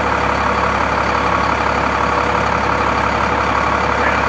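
Quint ladder truck's diesel engine running steadily, powering the hydraulics of its raised aerial ladder.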